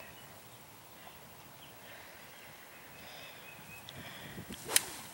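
A golf iron striking the ball once near the end: a single sharp click of a cleanly struck shot.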